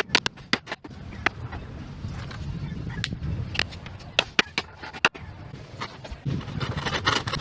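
Irregular sharp knocks and clacks of bamboo and wood pieces being worked, about a dozen spread unevenly, over a low steady rumble.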